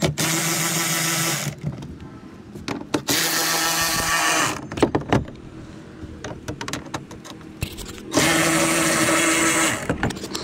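Power drill with an Allen bit spinning out screws: three runs of steady motor whine, each about a second and a half, with short clicks and knocks between them.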